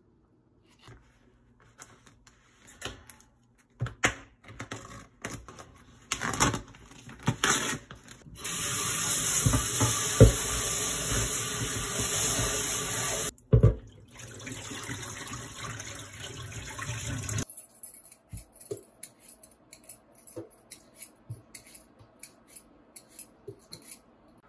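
Kitchen tap running hard into a bowl of raw chicken in a steel sink while the pieces are washed by hand, then running softer with splashing for a few seconds. After the water stops, a quick even run of scraping strokes from a vegetable peeler on a potato. Scattered clicks and knocks of handling come before the water.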